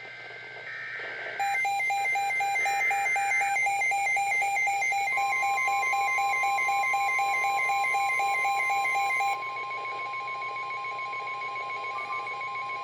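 NOAA Weather Radio emergency alert: the last warbling data bursts of the SAME header, then rapid pulsing alarm beeps from about a second and a half in, joined about five seconds in by the steady 1050 Hz warning tone. The beeping drops in level about nine seconds in while the steady tone holds. This sequence announces the severe thunderstorm warning that follows.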